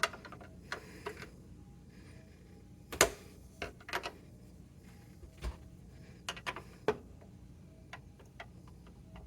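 Scattered metal clicks and clinks of a hand wrench being tried on a BNC connector nut, with a sharp clack about three seconds in and a quick cluster of taps near seven seconds.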